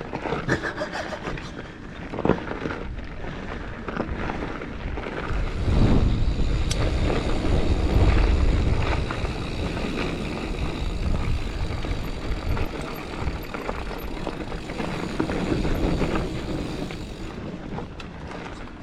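Giant Fathom mountain bike ridden over a dirt trail: tyres rolling and the bike rattling over bumps with scattered sharp knocks. Wind buffets the microphone, heaviest from about six to nine seconds in.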